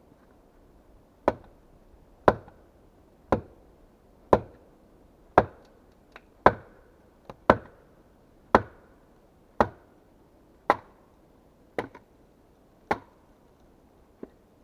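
Axe chopping into wood with steady, sharp strokes, about one a second for a dozen strokes, with a few lighter knocks between them.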